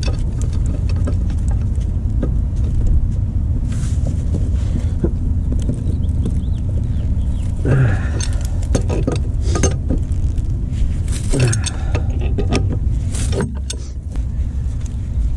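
A pipe wrench and hands working the threaded steel fitting on a gas meter's outlet pipe: metal clinks and scrapes come in several clusters of sharp clicks from about halfway through. A steady low rumble runs underneath.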